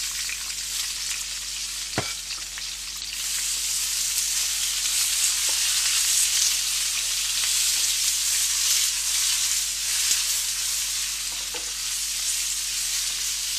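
Onion frying in hot oil in a frying pan, a steady sizzle that grows louder about three seconds in, with one sharp click near the two-second mark.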